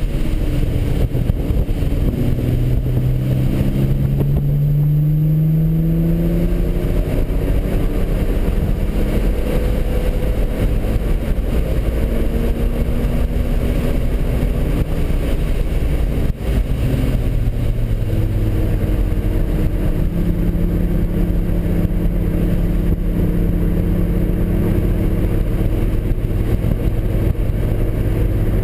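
Nissan 300ZX (Z32) twin-turbo V6 under hard driving, heard from inside the cabin. The engine note rises in pitch under acceleration and drops back at gear changes through the first half, then runs steadier in the second half.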